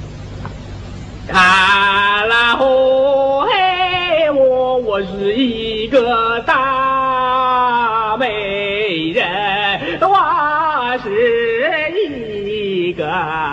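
Music: a solo singing voice holding long, wavering notes in phrases, over a steady low accompaniment.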